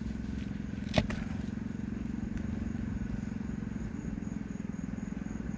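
A steady low engine-like hum, with one sharp knock about a second in.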